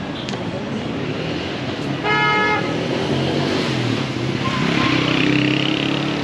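Street traffic with a vehicle horn sounding once, briefly, about two seconds in. An engine then grows louder near the end as a vehicle comes close.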